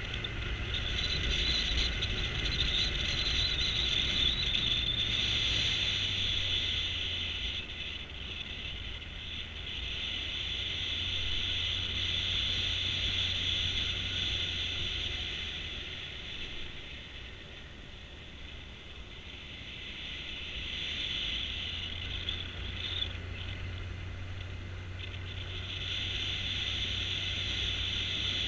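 Motorcycle engine running at a steady cruise with wind rushing over the camera. It eases off a little past halfway and picks up again toward the end.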